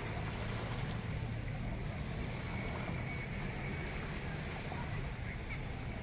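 Small waves washing up onto a sandy beach, over a steady low rumble.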